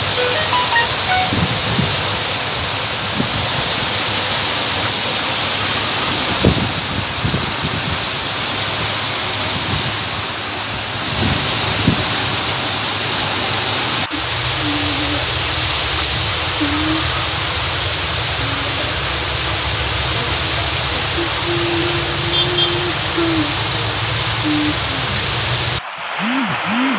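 Heavy monsoon downpour: a loud, steady hiss of rain pouring down on trees, road and parked vehicles, its sound shifting slightly about halfway through.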